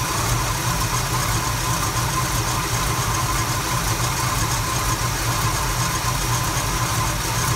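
1974 Chevrolet C10's small-block V8 idling steadily.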